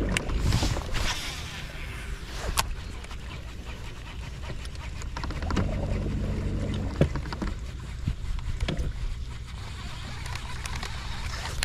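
A boat's electric trolling motor humming low in short spells, about five and a half seconds in for a second or so, with a few sharp light knocks and clicks from the boat in between.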